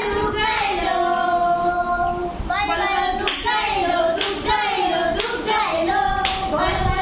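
A young girl singing a song in long held notes, with hand claps keeping time about once a second.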